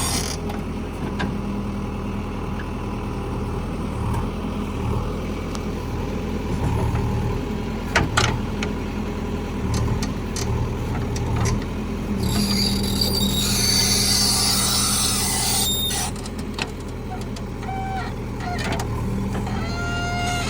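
Diesel engine of a JCB 3DX backhoe loader running steadily while it works, with a sharp knock about eight seconds in and a stretch of hiss a little past the middle.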